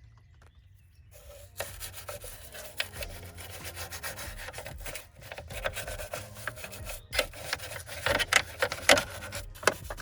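Cleaning rag scrubbed back and forth over car interior trim: a dense run of rough rubbing strokes that starts about a second and a half in and grows louder toward the end.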